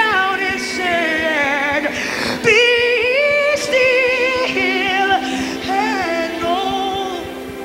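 A woman singing long, sliding worship phrases with vibrato into a microphone over a held keyboard chord; her voice fades near the end, leaving the sustained chord.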